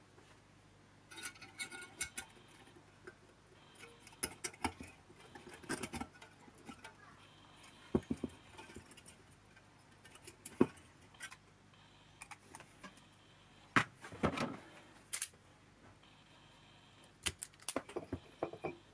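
Scattered clicks, taps and light metallic rattles of small parts being handled: the green blower resistor being fitted into the black-lacquered sheet-metal blower housing. A cluster of louder knocks comes about three quarters of the way through.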